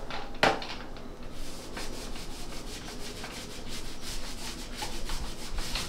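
Small paint roller rubbing as it is worked in its tray and rolled over a drywall patch with wet shellac-based primer, a steady run of repeated rubbing strokes. A single sharp click about half a second in.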